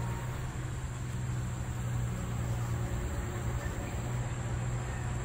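Earth-moving machinery grading a building lot: a heavy engine running with a steady low drone.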